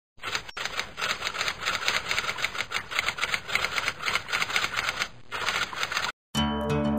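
Typewriter keys clacking in a rapid, uneven run, with a short pause about five seconds in. The clacking stops just after six seconds, and music starts right after.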